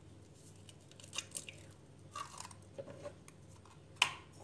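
Quiet kitchen handling sounds at a plastic mixing container: a few faint rustles and light knocks, then one sharp tap about four seconds in.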